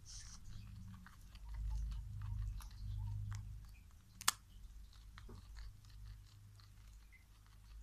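Guinea pig chewing and biting a pressed-hay treat: many small irregular crunching clicks, with one sharper crack about four seconds in. A low rumble sits under the first few seconds.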